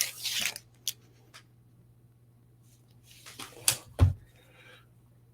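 Comic books and prints being handled: a short rustle at the start, a click, then another rustle ending in a soft thump about four seconds in.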